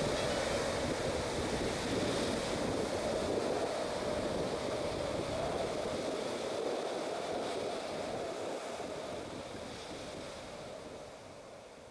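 Sea surf washing as a steady rushing noise, slowly fading out over the last few seconds.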